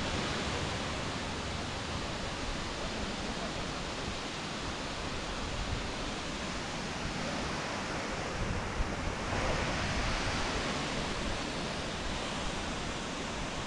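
A steady rushing noise without pauses, growing a little brighter about nine seconds in.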